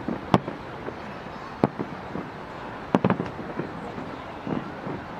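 Aerial firework shells bursting overhead in a display: sharp bangs about half a second in, again at a second and a half, and a quick double near three seconds.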